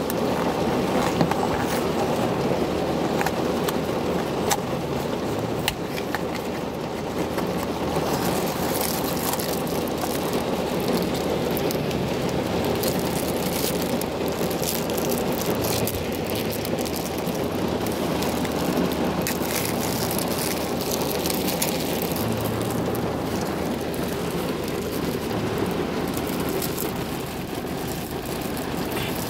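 Steady rain on a car's roof and windows, heard from inside the cabin.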